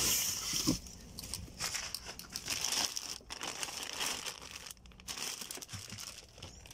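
Clear plastic bag crinkling and rustling as it is pulled open by hand from around a battery. The crinkling is densest in the first second, then comes in irregular short bursts.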